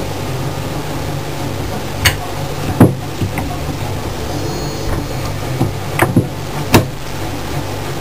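Microwave oven running with a steady mains hum, with a few sharp clicks or knocks over it, four in all.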